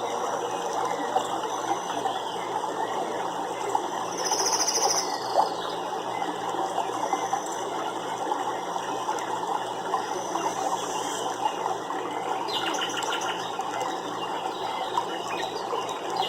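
Nature-sounds ambience: a steady, crackly background hiss with a short high trill about four seconds in and a run of fast, high clicking pulses a little past the middle, like birds or insects calling over it.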